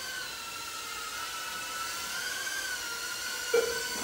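Small FPV racing drones flying, their motors and propellers making a steady high whine that wavers slightly in pitch, with a short blip near the end.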